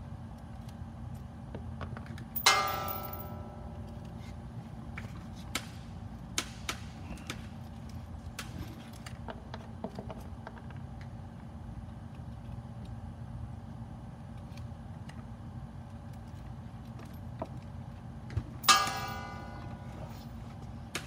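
Small metal tools being handled on a workbench: scattered light taps and knocks, and two loud metallic clinks that each ring for about a second, one near the start and one near the end. A steady low hum runs underneath.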